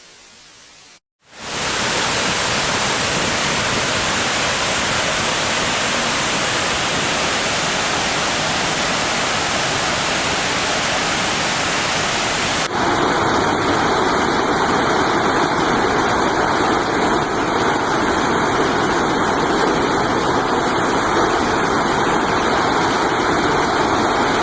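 Water rushing from a dam's release, a loud steady noise that sets in about a second in. About halfway through it changes abruptly to another stretch of rushing water.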